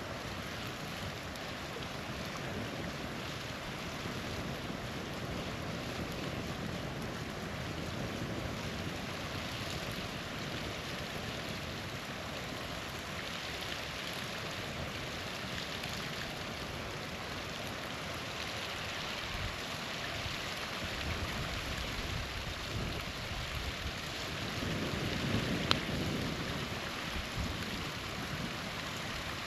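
Small waterfall running with a steady, even rush of water. Near the end a single sharp pop comes from the campfire.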